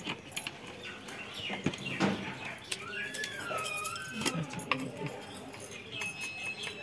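A bird calling, a whistle that rises and then falls, about three seconds in, with a shorter whistle near the end. Sharp scattered crackles from the wood fire burning under the wok.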